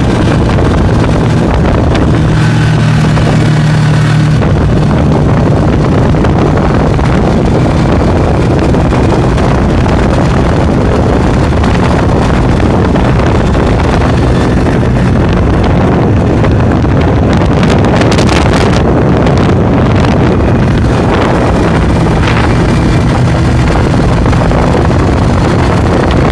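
Snowmobile engine running steadily at speed, with wind noise on the microphone.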